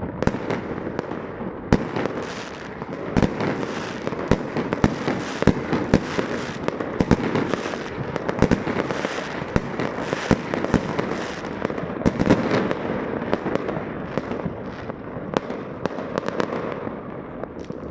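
Dense, continuous fireworks: many sharp bangs and firecracker pops going off in quick succession, with a crackling wash behind them and a few louder booms throughout.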